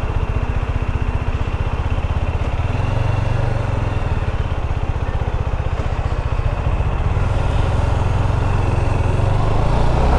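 Motorcycle engine running steadily at low revs as the bike creeps along, with a dense low, even firing beat.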